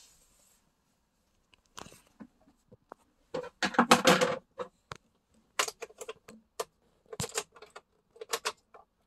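A bunch of keys jangling and clicking in short clattering bursts, loudest about four seconds in, with a few sharp clicks after: the ignition key being handled before the truck is started.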